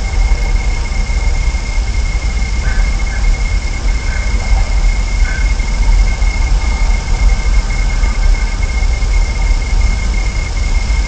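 Steady, loud rumbling noise on an outdoor nest-camera microphone, with a constant high-pitched whine over it and a few faint short chirps in the first half.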